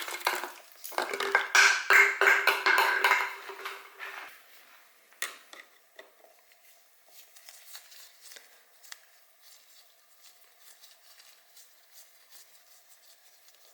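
A plastic bottle catch can being cut free and handled: dense clattering and crackling for about four seconds, then only faint scattered clicks over a faint steady hum.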